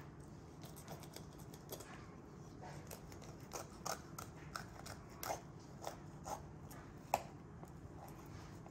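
Thin knife filleting a yellow perch on a plastic cutting board: faint scrapes and small ticks as the blade cuts along the fish, with one sharper click about seven seconds in.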